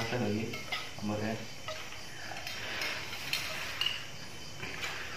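Spoons and forks clinking and scraping against plates of noodles as several people eat: light, irregular taps with soft scraping between them.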